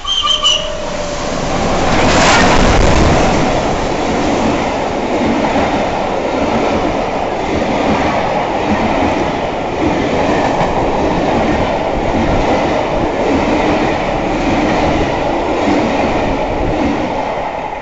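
Steam locomotive Flying Scotsman, an LNER A3 Pacific, passing at speed. It is loudest as the engine goes by about two seconds in, then comes the steady rumble of its coaches with a regular clickety-clack of wheels over rail joints, easing off near the end.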